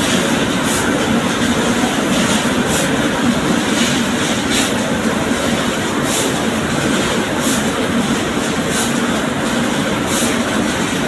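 Machinery running steadily and loudly, with a short high hiss recurring about every one to two seconds.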